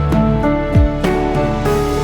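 Background music: a gentle, tender instrumental with sustained tones and soft low beats.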